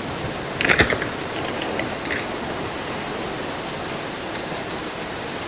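Steady hiss of rain-like noise, with one short, sharper sound about a second in.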